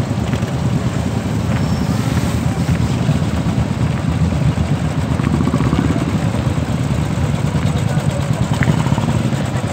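Several Royal Enfield single-cylinder motorcycles running together in a slow-moving group, a loud, steady low engine rumble, with voices mixed in.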